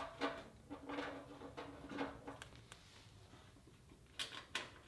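Faint handling noises of parts being fitted by hand: light knocks and rustling, with a couple of small clicks near the end.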